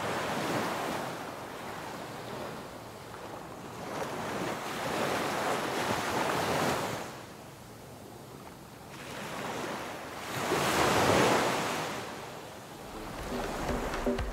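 Low sea waves breaking and washing up a sandy shore, the surf swelling and fading in three surges, the loudest a little past the middle.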